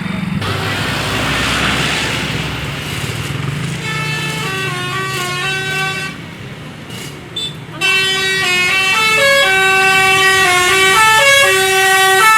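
A bus passing with a rush of engine noise, then its multi-tone 'telolet' air horn, a Basuri-type melody horn, playing a stepping tune. The tune starts about three seconds in, breaks off briefly past the middle, and resumes louder to the end.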